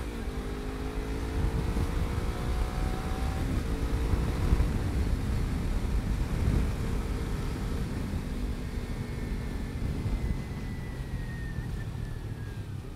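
Kawasaki Ninja sport bike's engine accelerating, its pitch rising over the first few seconds, then running at speed under a heavy low rush of wind and road noise. Near the end it eases off, with a thin whine falling slowly as the bike slows.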